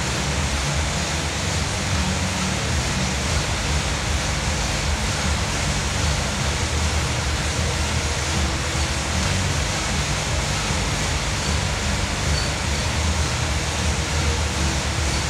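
Air bike's fan wheel whooshing steadily as it is ridden, a constant rush of air with a low rumble underneath.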